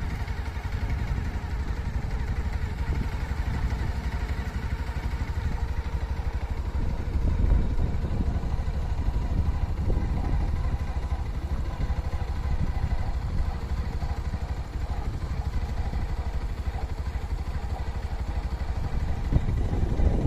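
Steady low rumble of a moving vehicle, its engine and road noise running on without a break.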